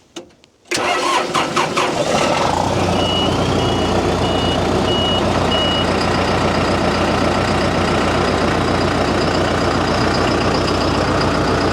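A John Deere 6115D tractor's diesel engine is started: the starter cranks for about two seconds, then the engine catches and settles into a steady idle. Soon after it catches, a high electronic beeper sounds about five times.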